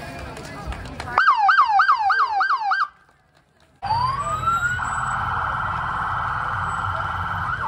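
Emergency-vehicle siren: a fast yelp of falling sweeps, about four a second, that stops after a second and a half. After a brief gap the siren rises into a long, steady wail, with an engine rumbling beneath it.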